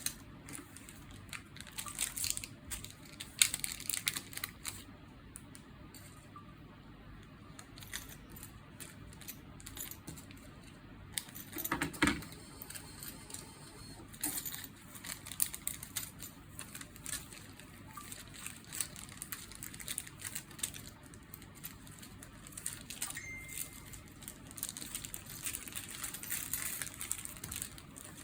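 Small hard parts and packaging being handled: irregular clicks and light clatter with some crinkling, and one louder knock about twelve seconds in.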